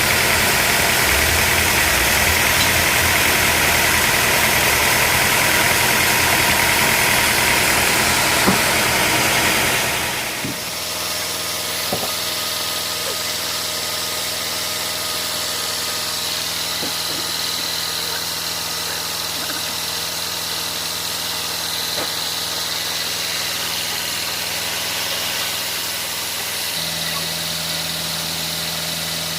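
Sawmill engine running: loud and rough for about the first ten seconds, then dropping suddenly to a steadier, quieter hum with a few faint clicks.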